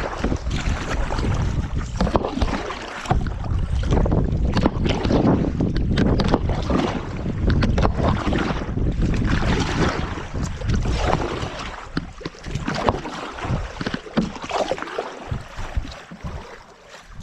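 Wind rumbling on the microphone over the splashing and knocking of a kayak being paddled through water, loudest in the first half and easing near the end.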